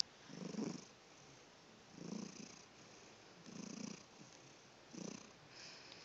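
Cat snoring softly, four short snores on its breaths about a second and a half apart. A brief click sounds right at the start.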